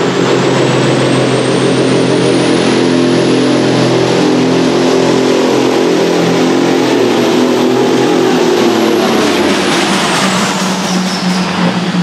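A John Deere pulling tractor's engine running flat out as it drags the weight sled, loud and steady. A high whistle rises over the first eight seconds and falls away near the end as the engine eases.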